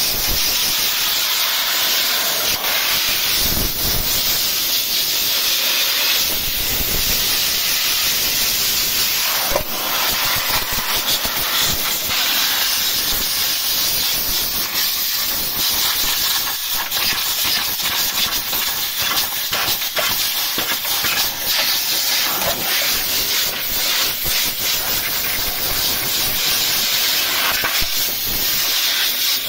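Compressed-air blow gun hissing steadily as it blasts caked dirt out of a car radiator's fins.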